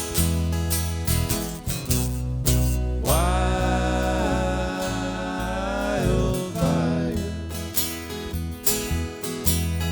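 Acoustic string band playing an instrumental break: strummed and picked acoustic guitars with steady bass notes. About three seconds in, a lead line slides up into one long wavering note that ends about three seconds later, then the picking carries on.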